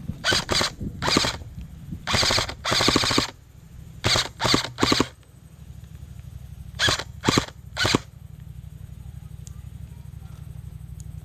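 Airsoft gun firing in bursts of rapid shots. There are several short bursts, two longer bursts around two to three seconds in, then two groups of three short bursts, with the firing stopping about eight seconds in.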